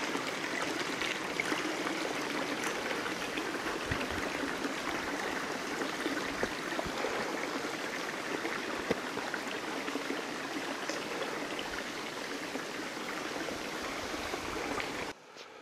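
Small brook running: a steady rush of water that cuts off suddenly near the end.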